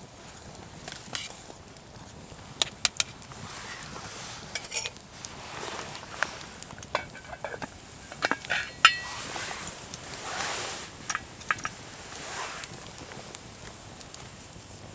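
Camp cooking: metal utensils and cookware clinking and knocking, irregular sharp clicks with a brief metallic ring about nine seconds in, over soft rustling.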